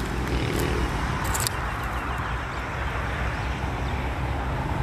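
An engine running steadily with a low, rhythmic beat, with a few brief sharp ticks in the first second and a half.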